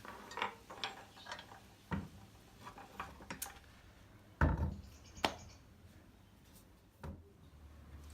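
Irregular clicks and knocks of parts being handled and fitted together while the bike's front-fork stand is assembled, with one heavier thump about halfway through.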